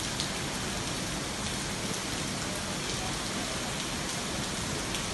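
Rain falling steadily on a wet paved street: an even hiss with a few faint ticks of single drops.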